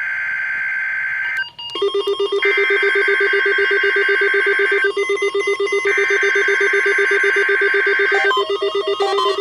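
NOAA Weather Radio SAME header for a Required Weekly Test: three bursts of the two-tone digital data screech, each a couple of seconds long and about a second apart. From about two seconds in, weather radio receivers sound their alert beep, a fast-pulsing low tone, joined near the end by other radios beeping at different pitches.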